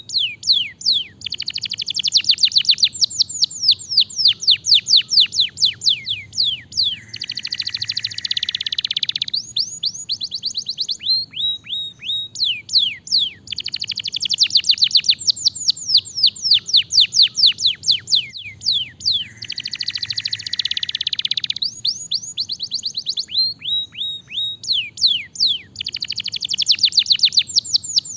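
Domestic canary singing: long fast trills of sharp downward-sweeping notes, broken by a denser rolling phrase, with the same sequence of phrases recurring about every twelve seconds.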